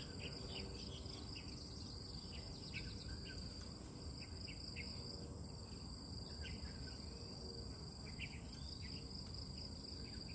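Outdoor ambience dominated by a steady chorus of insects, a continuous high-pitched drone, with short high chirps scattered through it and a low rumble underneath.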